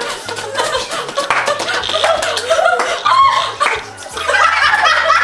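Laughter and excited voices over background music with a steady bass line.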